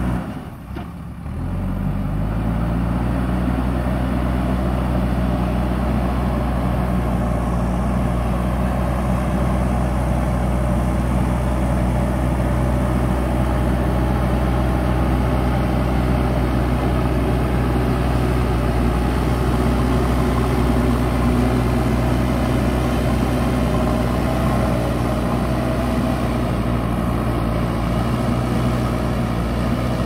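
JCB 3DX backhoe loader's diesel engine running steadily while it pushes dirt with its front bucket. About a second in the sound drops briefly, then the engine note climbs back up.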